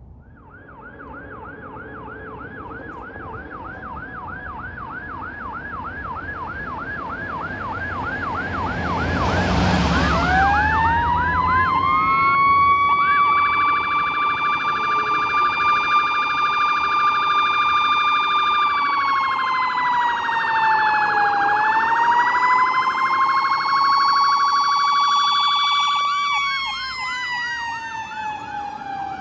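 Fire engine siren approaching on a fast yelp that grows steadily louder, with a brief blast of noise about nine seconds in. The siren then winds up into a long wail that holds, dips and climbs again. Near the end the yelp returns as the engine passes, and a falling tone slides down underneath it.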